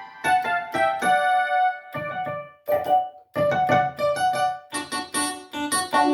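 Yamaha PSR-530 arranger keyboard playing a piano-like voice: quick runs of single notes and chords, with two brief pauses about three seconds in.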